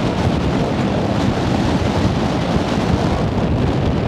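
Loud wind buffeting the camcorder microphone: a continuous low, flickering rumble.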